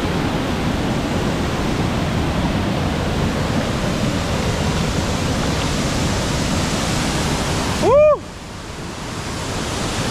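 Heavy waterfall rushing steadily, running high after a night of heavy rain. About eight seconds in, a short, loud rising-and-falling cry cuts across it, and the rush drops briefly before building back.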